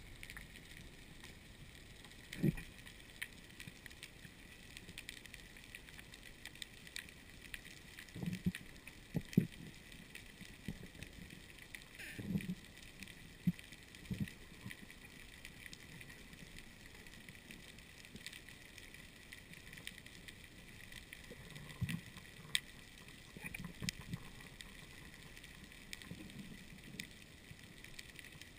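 Muffled underwater sound picked up through a waterproof camera housing on a reef dive: a faint steady hiss with fine crackle, broken by about ten dull low thumps scattered through it, the loudest about nine seconds in.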